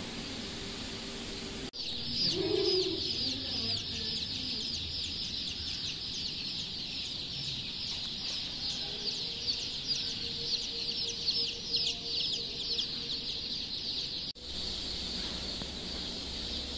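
A pen of young domestic chicks peeping: many short, high, downward-sliding peeps overlapping in a constant stream. It starts abruptly about 2 seconds in and cuts off sharply near the end, with a steady hiss before and after.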